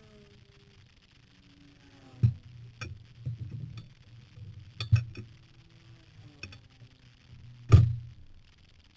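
Sharp metallic clicks and clinks inside a stationary race car's cabin, about four of them with the loudest near the end, as a quick-release steering wheel is handled and fitted. A low steady hum runs underneath.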